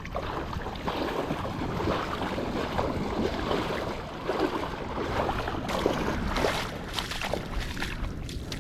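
Surf washing on the beach with wind buffeting the microphone.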